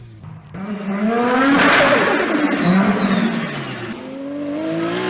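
Turbocharged car engine revving up and dropping back several times. About a second and a half in, at the loudest point, there is a rush of air with a high whistle falling in pitch: turbo flutter as the throttle closes.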